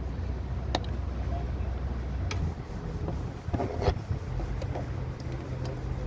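A few sharp clicks and knocks over a steady low hum, with a cluster of them a little past the middle.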